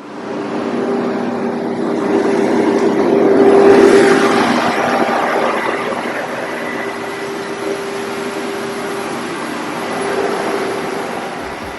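200 kW diesel generator running under load during a load-bank test: a steady engine drone with a constant hum. It swells louder about four seconds in, then settles back to a steady level.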